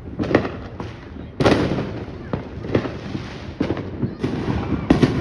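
Consumer fireworks going off in rapid succession: a string of sharp bangs, several followed by crackling, with the loudest burst and a long crackle about a second and a half in.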